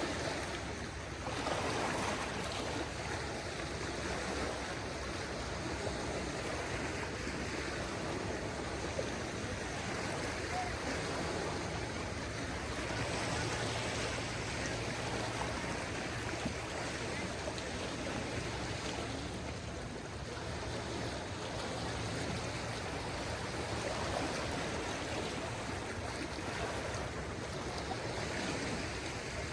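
Small waves of a calm sea lapping and washing on the shore: a steady wash of water that swells gently every several seconds.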